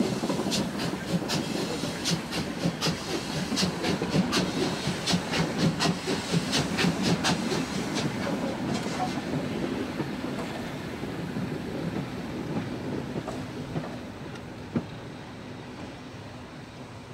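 German class 44 steam locomotives rolling past close by, with a heavy rumble, a hiss of steam and a quick run of sharp clicks as the wheels cross the rail joints. About halfway through the clicking stops and the rumble slowly fades as the train moves away.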